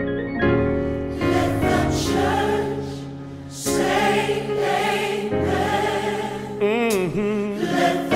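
Gospel choir singing a slow, sustained passage over keyboard accompaniment, with a solo voice sliding in a wide vibrato near the end.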